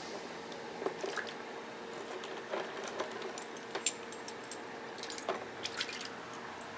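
Scattered light clicks and taps of small metal Keihin carburetor parts being handled and fitted by hand, with a couple of faint metallic pings, over a faint steady hum.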